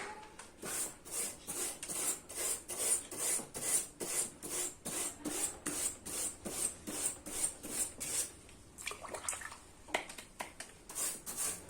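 Iron wire brush scrubbing the aluminium fins of a split AC's indoor cooling coil, in quick rhythmic back-and-forth strokes of about three a second, with a short pause about nine seconds in. It is scraping packed dust off a choked coil.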